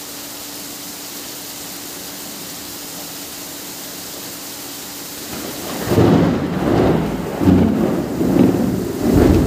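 Heavy rain hissing steadily, then about six seconds in a loud rolling rumble of thunder builds and swells in several waves over the rain.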